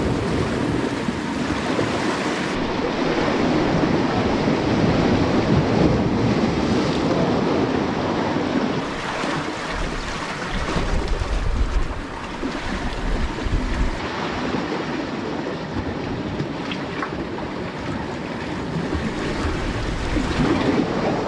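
Sea waves washing against rocks, with wind buffeting the microphone, heaviest about halfway through.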